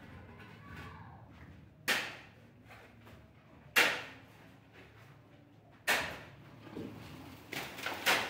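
A long-handled pick striking hard ground, breaking it up. Three heavy strokes come about two seconds apart, each a sharp hit with a short ringing tail, and lighter knocks follow near the end.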